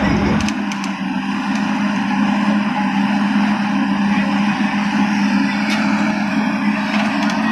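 JCB 225 crawler excavator's diesel engine running steadily under digging load, a constant drone with hydraulic and machine noise, and a few light clicks.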